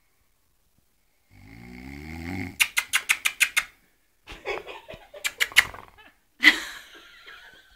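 A person snoring: one long rattling snore on the in-breath about a second in, followed by several runs of rapid, breathy bursts of stifled laughter and a louder laughing outburst near the end.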